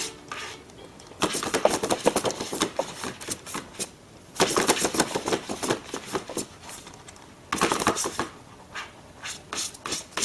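A sheet of paper crackling and scraping over a wooden floor as a hand tugs it and a cat bats at it with its paws, in three bursts of rapid crackling with lighter rustles between.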